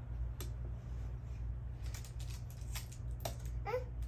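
A toddler babbling, with one short pitched vocal sound near the end, among scattered clicks and rustles from parts and packaging being handled. A steady low hum runs underneath.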